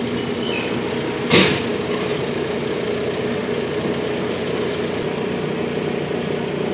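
A steady engine idle hum throughout, with one loud clunk about a second in as the motorcycle is pushed up onto the metal hitch-mounted carrier rack.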